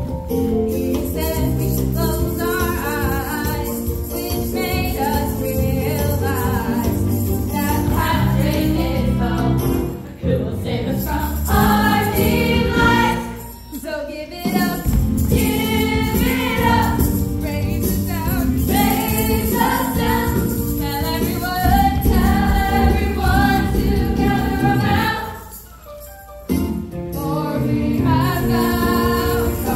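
A chorus of voices singing a gospel-style number over full musical accompaniment with a jingling, tambourine-like beat. The music dips briefly about a third of the way in, and again near the middle and toward the end.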